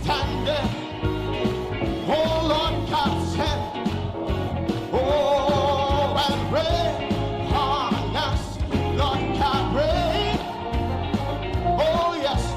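Upbeat gospel band music with a steady beat and a lead melody that slides up and down in pitch, without sung words.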